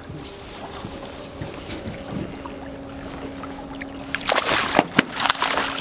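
A small hooked fish thrashing and splashing at the surface beside the boat as it is grabbed by hand, a quick run of loud splashes starting about four seconds in. Before that, only a faint steady hum and low water noise.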